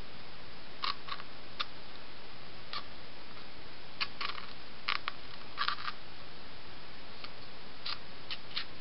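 Razor blade cutting into a cardboard toilet paper roll: scattered short clicks and scrapes at irregular intervals over a steady hiss.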